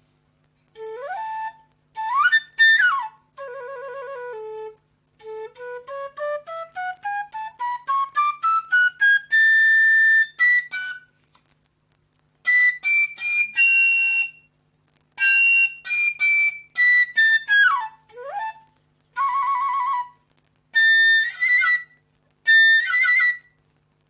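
Vietnamese bamboo transverse flute (sáo trúc) in the key of A being test-played. Short phrases with sliding pitch bends lead into a run of quick notes climbing about two octaves to a held high note near the middle. After that come separate high-register phrases with brief silences between them.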